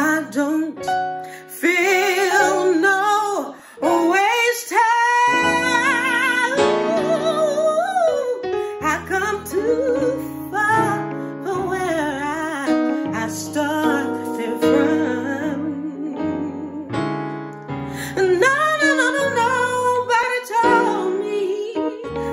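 A woman sings a solo gospel-style song with a wavering vibrato and ornamented runs that slide up and down, over sustained keyboard chords.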